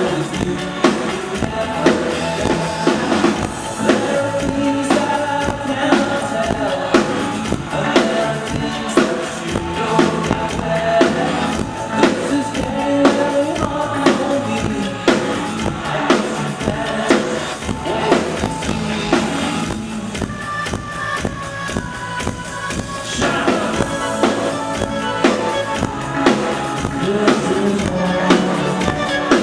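A live band playing a song, with a drum kit keeping a steady beat, keyboards and a singing voice.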